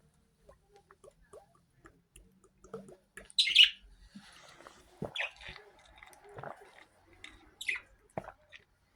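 A pet bird chirping: a few short, high chirps spaced a second or two apart, the loudest about three and a half seconds in, with soft clicks and knocks between them.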